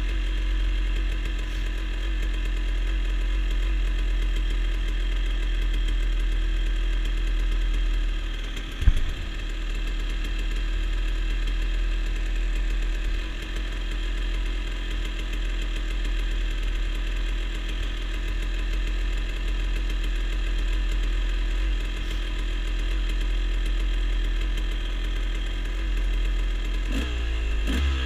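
Dirt bike engine idling steadily, with a single sharp thump about nine seconds in and a brief drop in pitch near the end.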